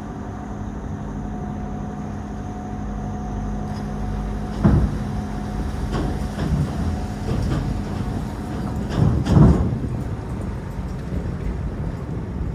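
Ferry's engine running with a steady hum that weakens about four seconds in as it docks, with several dull thumps over it, the loudest two near the middle and one a little later.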